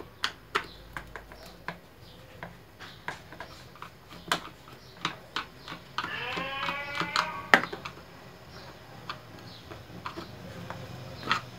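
Sharp, irregular clicks and taps of a screwdriver and loosened screws against the plastic base of a Moulinex 123 mixer as its four motor-housing screws are taken out. About six seconds in, a wavering pitched call of unclear source rises and lasts about a second and a half.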